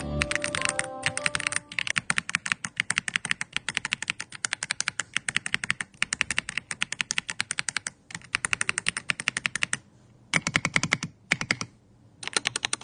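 E-YOOSO Z-99 Ultra mechanical keyboard being typed on rapidly, its switches clacking with what the reviewer calls a mahjong-tile sound, about ten keystrokes a second. Near the end the typing breaks into three short bursts with pauses between them.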